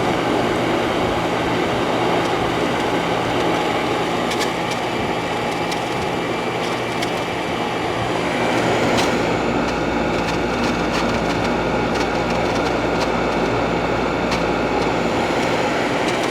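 Window air conditioner running, heard at its back: a steady hum with the rush of its fan, and scattered ticks and splashes from the little condensate water still left in the unit, no longer running down the condenser coil.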